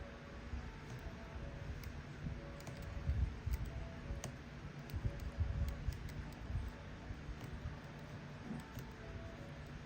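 Scattered light clicks and dull knocks of a hex wrench working a screw out of a plastic RC truck suspension arm, with the parts shifting in the hands.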